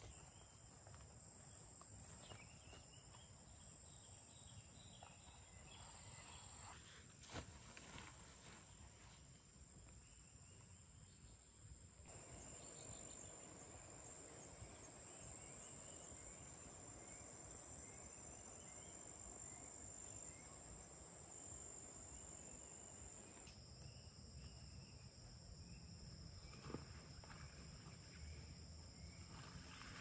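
Faint forest ambience: a steady high-pitched insect drone with scattered soft chirps, and a single soft knock now and then.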